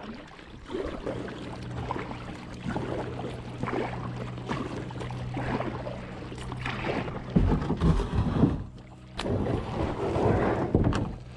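Kayak paddle strokes splashing in lake water, roughly once a second, with wind on the microphone and a few heavier low thumps about two-thirds of the way through.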